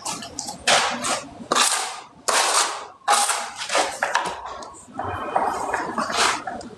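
A series of sharp hits, about one every 0.8 seconds, each with a short hissing decay, typical of manual construction work with a hand tool.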